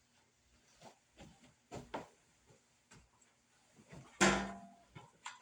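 Objects being handled and set down: scattered light clicks and knocks, with one louder thump about four seconds in.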